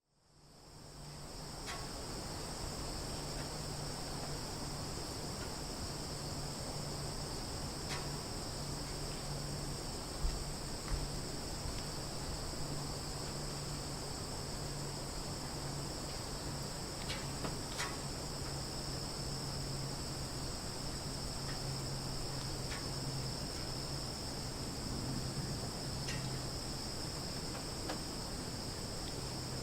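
Summer forest ambience: a dense chorus of crickets trilling steadily in two high, unbroken bands, over a low steady hum, with a few brief chirps scattered through. It fades in over the first second and a half.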